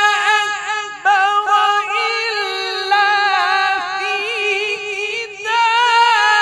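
A male Quran reciter's solo voice in melodic tilawat through a microphone: long, high held notes with fine wavering ornaments, broken by short breaths about a second in and again near the end.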